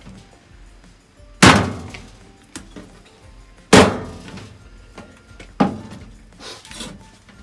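Three hard knocks on a wooden cutting board, about two seconds apart, each with a short ringing tail, the last one weaker. They come from the tools of a chef cutting up a conger eel.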